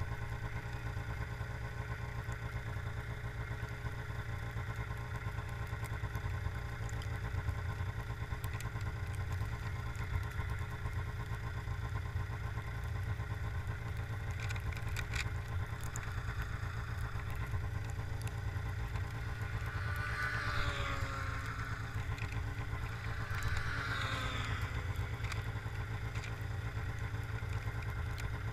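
Arctic Cat ZR 500 snowmobile's two-stroke engine idling steadily while the sled sits nearly still. A higher sound rises and falls briefly twice in the second half.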